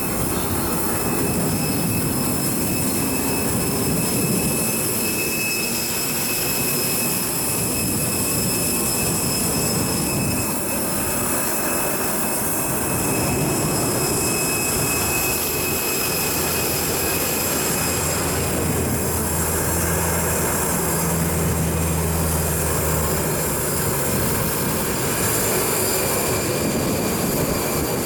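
Steady whine and rush of aircraft turbine engines, with several high tones held constant. A low hum joins for a few seconds around twenty seconds in.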